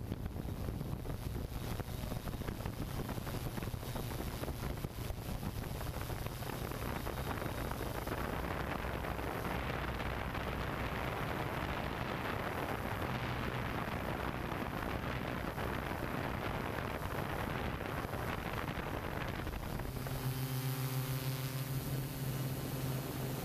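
Hexacopter drone's motors and propellers humming steadily, with wind rushing over the microphone. About three seconds before the end the hum grows stronger and more tonal, a low drone with several steady pitches stacked above it.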